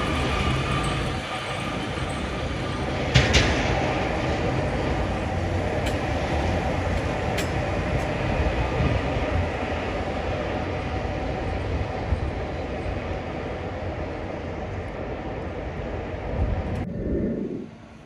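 Heavy sanitation trucks with front plows passing on a snowy street: a steady rumble of diesel engines and plow blades over the road, with a sharp knock about three seconds in. The sound drops to a much quieter street background near the end.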